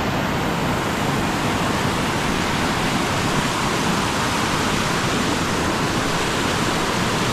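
Small mountain waterfall cascading over boulders: a steady, even rush of water.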